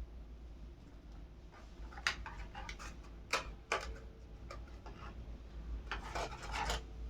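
Earphones and their packaging being handled: rubbing and rustling, with three sharp clicks in the first half and a longer rustle near the end.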